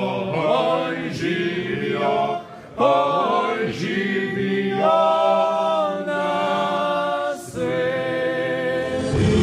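A group of people singing together without accompaniment, a toast song with long held notes. The singing breaks off briefly twice, about a third of the way in and again near the end.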